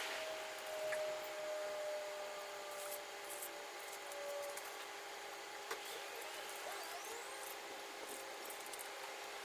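Faint scraping and crinkling as an aluminium-foil camping sheet is trimmed by hand along a straightedge, over a steady background hum.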